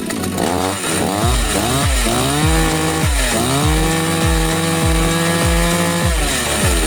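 56cc two-stroke chainsaw engine revved in several quick blips, then held near full speed for about three seconds before the throttle is released near the end. A steady low beat of background music runs underneath.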